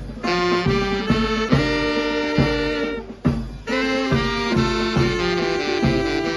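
Band music led by saxophones and brass over a steady beat, with a brief break about three seconds in before it carries on.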